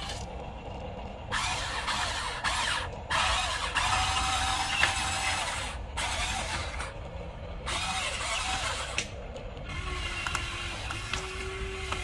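Electric motors and plastic gearing of an RC excavator whirring in several bursts that start and stop as its arm and tracks move.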